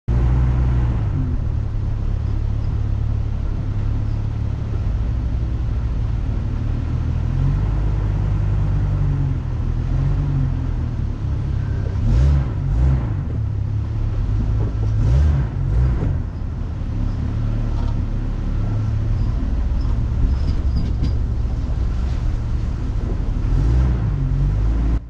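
Off-road vehicle's engine running as it crawls along a rough trail, a low rumble that rises and falls, with a few short knocks or clatters about halfway through.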